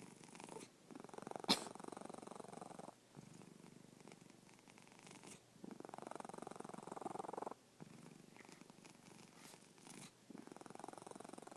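A cat snoring: a rumbling sound with each breath, swelling to a louder phase about every four to five seconds, three times. There is a sharp click about one and a half seconds in.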